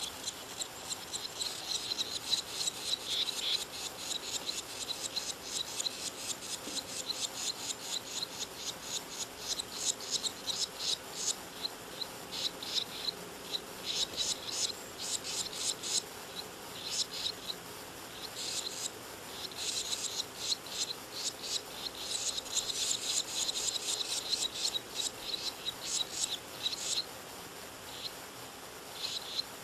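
Barn swallow nestlings begging: rapid, high, raspy chittering in irregular bursts with short gaps. It starts abruptly as a parent arrives at the nest to feed them.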